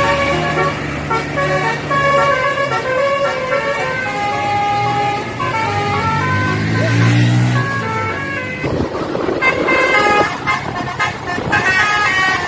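A tour bus's basuri 'telolet' musical horn playing a melody in held, stepping notes over the bus's diesel engine. The engine revs up about halfway through, and a short rush of noise follows near the two-thirds mark.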